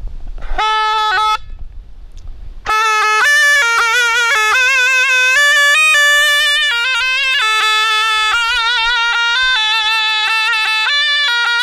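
Zurna, the Kurdish double-reed shawm, playing a folk melody: one brief note under a second in, then from about three seconds a continuous tune with quavering ornaments on the held notes.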